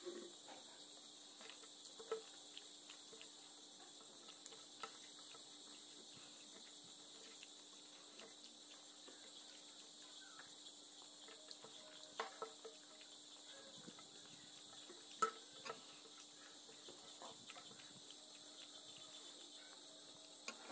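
Faint, steady high-pitched chirring of crickets, with a few soft clicks and smacks from eating rice by hand off a steel plate, the clearest about 2, 12 and 15 seconds in.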